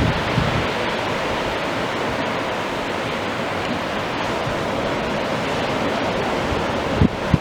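Steady rushing of wind and surf over open water, with a couple of low gusts buffeting the microphone near the start and near the end.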